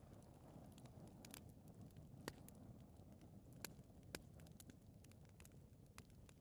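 Faint fire burning in a fireplace: a low, steady flame rustle with several sharp crackles and pops spread through it, the loudest a little after two seconds in and twice more around three and a half to four seconds in.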